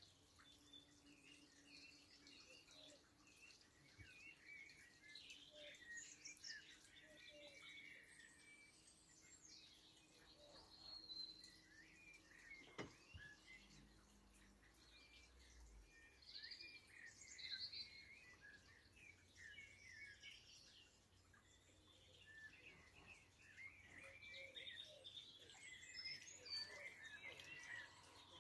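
Faint birdsong: many short, high chirps and twitters from small birds, with one soft click about halfway.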